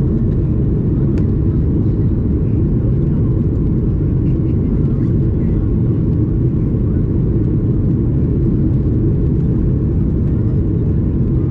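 Steady low-pitched roar inside the cabin of a Boeing 737 MAX 8, the noise of its CFM LEAP-1B engines and airflow running evenly.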